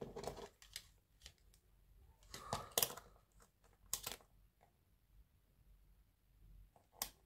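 Scattered light clicks and taps of multimeter test probes and the opened drill battery pack being handled while its lithium cells are checked one by one. There are a few separate taps, the loudest about three seconds in.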